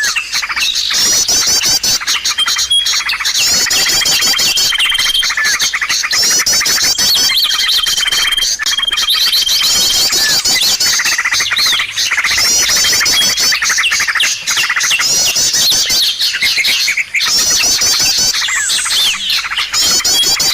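A dense chorus of many small songbirds chirping and twittering at once, of the kind used as a bird-luring call, with a high steady whistled note repeating every second or two.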